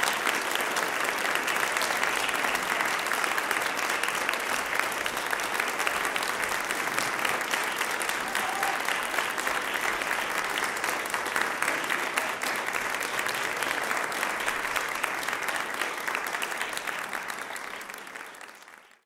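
Audience applauding steadily, a dense patter of many hands clapping that fades away over the last couple of seconds.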